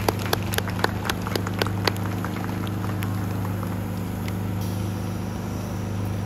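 Rosenbauer Panther 6×6 airport crash tender's diesel engine idling with a steady low hum. For about the first two seconds, quick footsteps slap on wet concrete at about four a second.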